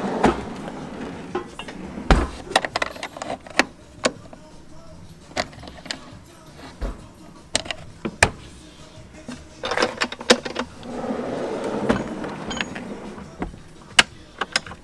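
Custom wooden storage drawers being handled: a drawer sliding and knocking shut, then metal latches clicking, giving a string of sharp clicks and knocks. There are longer rubbing, sliding sounds about ten and eleven seconds in.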